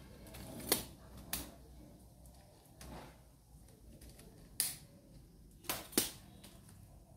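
Camera-handling noise: about six sharp clicks and knocks at irregular intervals as the camera and its mount are adjusted and raised.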